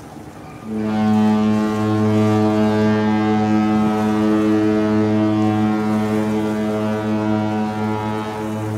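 A cruise ship's horn sounding one long, low, steady blast, starting under a second in and holding until near the end, the horn signal of a ship departing.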